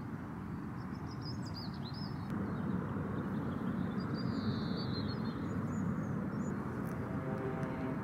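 Outdoor heathland ambience: a steady low rumble with a few small birds chirping and trilling high above it, in short calls a second or two apart.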